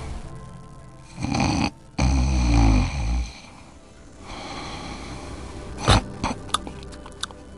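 A person snoring: two loud snores in quick succession about a second in, then softer breathing, with a few sharp clicks near the end.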